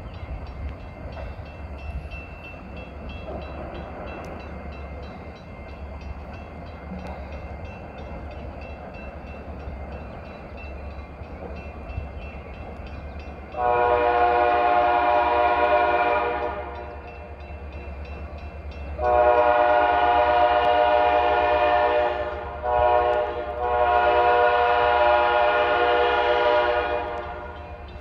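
Five-chime K5LA air horn on an EMD SD40 diesel locomotive sounding the grade-crossing signal: two long blasts starting about 14 seconds in, then a short one and a final long one. Underneath is the steady low rumble of the approaching locomotive. The horns are mounted facing the wrong way, which makes them sound funny.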